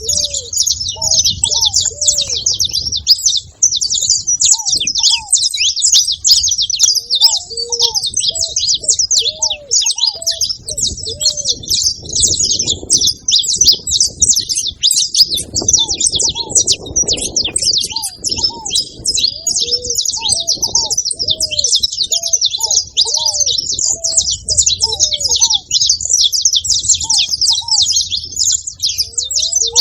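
Saffron finch chirping and twittering in a dense, rapid, unbroken stream of high notes, over a lower short hooked call repeated every second or so.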